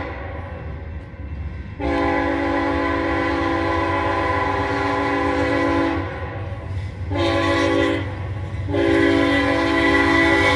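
Diesel freight locomotive air horn, a chord of several tones, blowing the grade-crossing signal: a long blast of about four seconds, a short blast, then another long blast starting near the end. A steady low rumble from the approaching train lies beneath.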